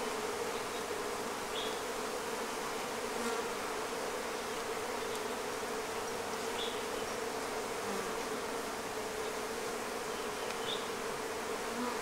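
Honeybee colony in an open hive humming steadily at one even pitch.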